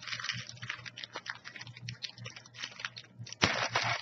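Plastic snack wrapper crinkling as a cookie package is handled, in irregular crackly bursts, the loudest about three and a half seconds in.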